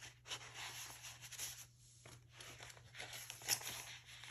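Paper rustling and sliding as a card is tucked into a pocket and a page of a handmade junk journal is turned, with a sharper rustle about three and a half seconds in.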